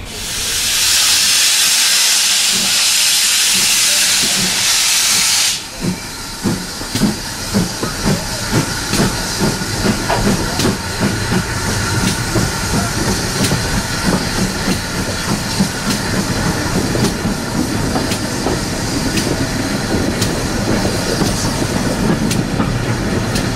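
GWR 4575 class 'Small Prairie' 2-6-2T steam locomotive working an auto-coach: a loud steam hiss for about the first five and a half seconds that cuts off suddenly, then exhaust beats about two a second as the train gets under way, settling into the steady running sound of the train.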